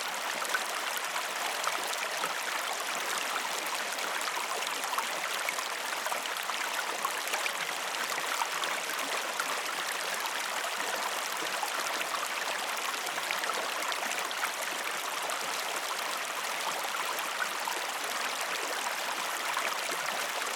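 Mountain stream cascading over rocks: a steady rush of water with a fine splashing patter and no birdsong.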